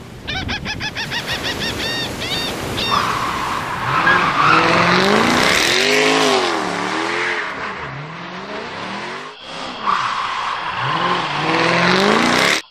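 Race car sound effect: a quick run of short tyre squeals, then car engines revving, their pitch rising and falling several times, cut off abruptly at the end.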